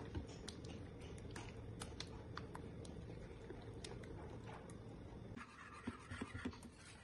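Silicone spatula stirring thick cheese sauce in a steel pan: scattered light ticks and scrapes against the pan, over a steady low hum. Near the end a wire whisk scrapes through the sauce with a denser scratching and a few dull knocks on the pan.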